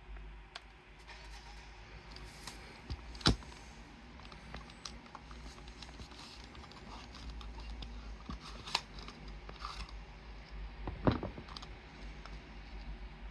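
Handling noise from a Toshiba RT-CS1 stereo radio cassette player being turned over and touched: scattered light clicks and scrapes, with two sharp clicks about three seconds in and about eleven seconds in, over a low hum.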